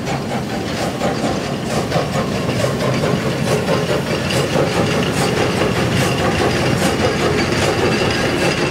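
Narrow-gauge steam tank locomotive I K 54 passing close with its train, loud and steady, followed by the wagons rolling by with repeated clattering knocks from the wheels over the rail joints.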